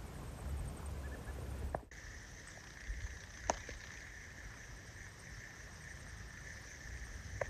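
Outdoor ambience at a lakeside: low wind rumble on the microphone, cutting off suddenly about two seconds in. After that a quieter, steady high-pitched drone goes on, with a couple of faint clicks.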